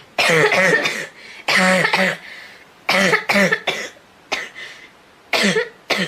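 A girl coughing in repeated fits: four bouts of two or three coughs each, about a second and a half apart.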